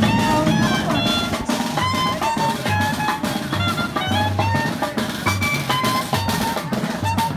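Music: a melody of quick stepping notes over a steady bass line and a drum beat.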